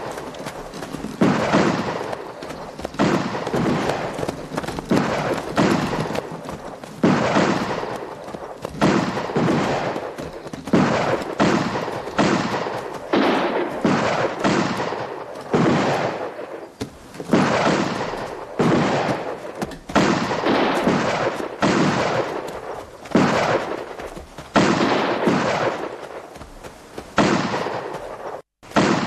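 Gunshots in a gunfight, about one shot a second for the whole stretch, each a sharp crack with a long echoing tail.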